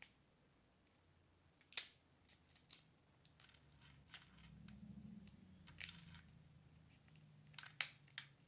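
Crab shell being cracked and worked open: a handful of sharp, dry cracks and snaps, the loudest about two seconds in and twice near the end.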